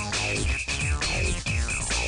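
Electronic background music with a steady beat, repeated falling synth sweeps and a pulsing high held note.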